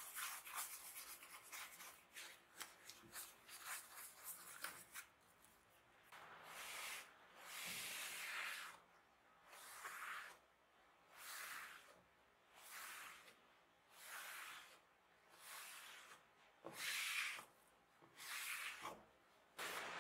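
Soft, quick strokes of a brush laying stain onto a wooden board, turning about six seconds in to a cloth rubbing over the stained wood in slow, even back-and-forth wipes, about one every second and a half, taking off the excess stain.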